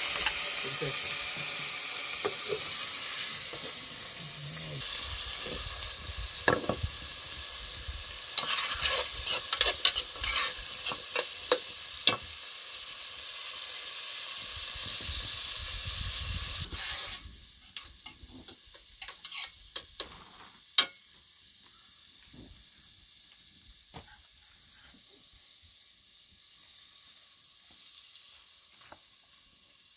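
Hissing and crackling of flatbread cooking over a wood fire, with sharp pops about 6 to 12 seconds in. The hiss drops away suddenly about 17 seconds in, leaving faint scattered crackles.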